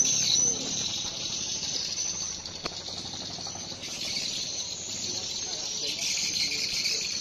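Insects calling in a steady, high-pitched chorus that swells again about four seconds in, with faint voices underneath.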